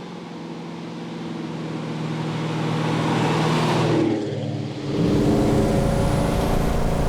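1967 Pontiac GTO's 455 V8 running as the car drives, its engine and road noise growing louder over the first four seconds. After a brief dip, the engine's steady note comes in loud about five seconds in.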